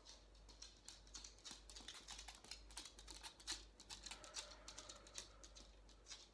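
Light, irregular clicking and tapping, several clicks a second, from a dog's claws on a wooden floor.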